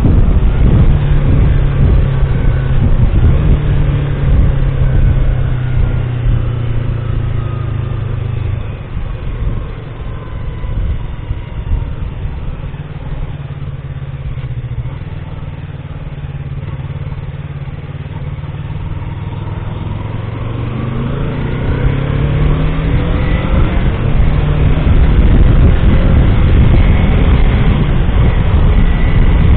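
Vehicle engine and road noise while driving: the engine note drops and quietens about eight seconds in as the vehicle slows or coasts, then climbs again from about twenty seconds in as it accelerates.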